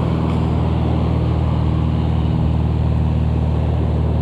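Small propeller airplane's engine running steadily and loudly.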